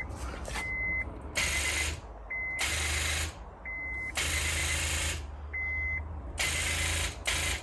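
Honda S2000 failing to crank: several bursts of rapid clicking, each about half a second to a second long, from the starter solenoid chattering. Between them a warning chime beeps at one steady high pitch. The clicking is the sign of a battery too weak to turn the engine over.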